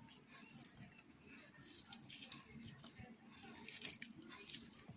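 Faint soft scraping and small wet plops as a knife cuts chunks off a boiled sweet potato and they drop onto boiled black-eyed peas in a bowl.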